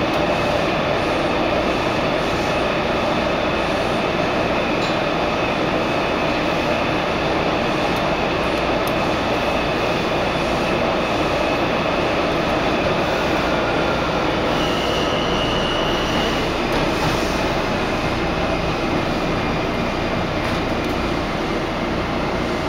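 Steady running noise inside a Washington Metro 3000-series railcar travelling at speed: the continuous rumble of wheels on rail and the car's running gear. A faint high-pitched whine is heard briefly about midway.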